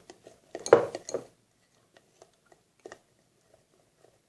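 Clinks and knocks of kitchen containers and utensils being handled, loudest in a cluster about a second in, then a few faint scattered taps.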